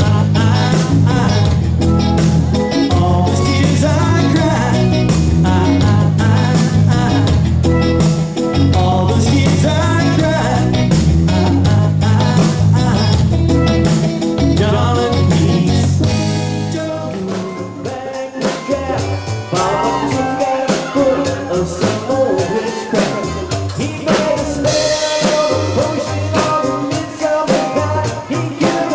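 A band playing reggae/rock music with electric guitar, bass and drum kit, no vocals transcribed. Heavy bass and drums for about the first 17 s, then the music drops to a lighter passage with guitar lines over the drums.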